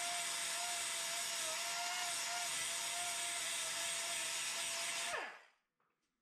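Pneumatic die grinder running steadily with a high whine as it grinds the cast iron valve pocket of a Big Block Chevy oval port cylinder head. About five seconds in it is shut off, and the whine falls in pitch and dies away quickly as it spins down.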